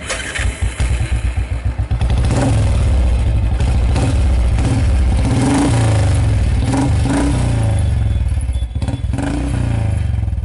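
Motorcycle engine, cutting in suddenly with a pulsing beat for about two seconds, then running loud and being revved, its pitch rising and falling several times.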